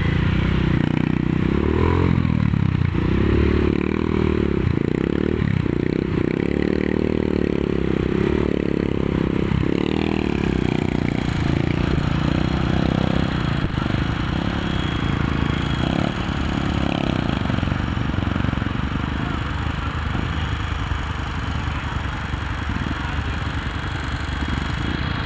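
Dirt bike engine running while ridden through a shallow river, revving up and down for the first ten seconds or so and then running steadier, with water churning and splashing.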